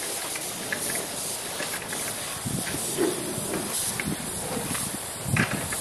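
Compressed-air paint spray gun hissing steadily as it sprays primer. Wind gusts buffet the microphone with low rumbles about halfway through and again near the end.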